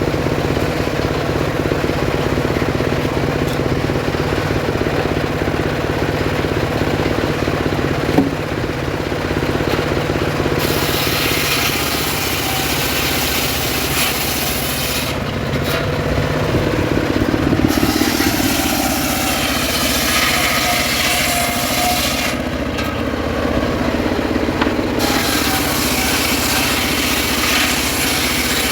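Engine-driven homemade circular saw ripping sengon wood. The engine runs steadily throughout. About a third of the way in, the blade's loud cutting noise through the log sets in; it breaks off briefly twice and is cutting again near the end.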